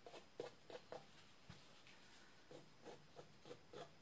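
Faint, quick strokes of a thin wooden stick drawn through wet acrylic paint on a canvas, in two short runs of about three strokes a second with a pause between them.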